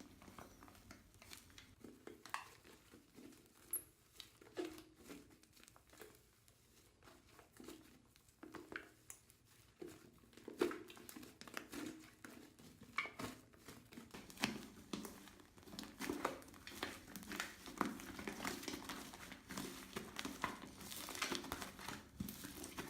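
Soft sticky clicks and crackles of toothpaste slime being worked by hand, irregular and faint at first and getting busier and louder in the second half.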